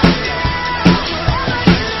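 A little girl playing a drum kit along to recorded rock music, with loud drum hits a little under once a second over the steady backing track.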